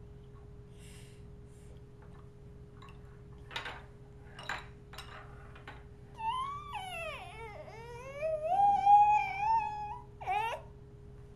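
Baby vocalising: a few short breathy sounds, then about six seconds in a long squealing coo that dips in pitch and rises to a held note for a couple of seconds. Two short squeaks follow near the end, over a faint steady electrical hum.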